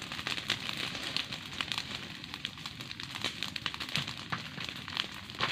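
Open fire crackling, with many irregular sharp pops and a steady hiss, as a heaped pile of dry fronds and sticks burns.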